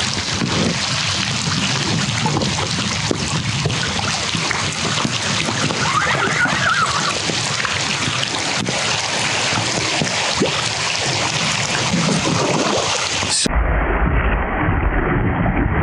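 Heavy rain hissing steadily. About 13 seconds in, the sound turns muffled and a low rumble comes in.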